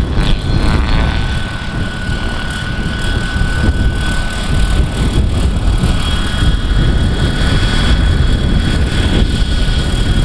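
Large-scale radio-controlled Bell 206 JetRanger model helicopter coming down and setting onto the runway. Its drive gives a steady high whine over heavy wind rumble on the microphone.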